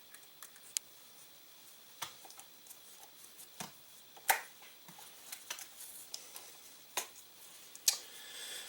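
Scattered light metallic clicks and taps from handling the Rossi Circuit Judge's cylinder and swing arm while it is being oiled, about half a dozen sharp ones among fainter ticks.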